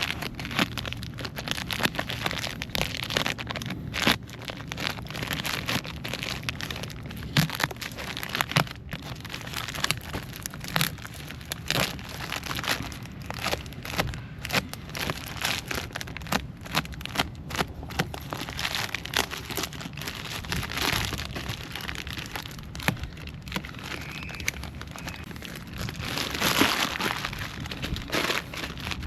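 Packaging crinkling and rustling as parts are handled, with many small clicks and knocks and a louder patch of rustling near the end.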